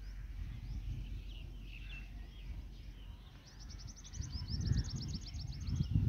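Songbirds chirping: scattered short calls, then a rapid high trill of short repeated notes, about ten a second, from about three and a half seconds in for a couple of seconds.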